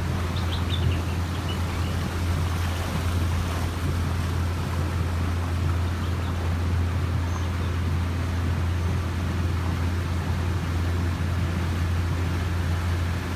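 A small motorboat's engine running steadily while under way, a continuous low drone with water and wind noise over it.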